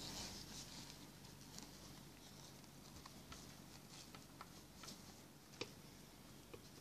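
Faint rustling of fabric being handled, with scattered soft clicks of small scissors snipping the corner of a welt pocket opening, one sharper snip about five and a half seconds in.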